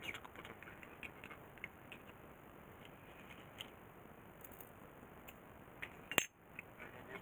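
Scattered light clicks and clatter of small hard parts being handled, with one sharp louder click about six seconds in.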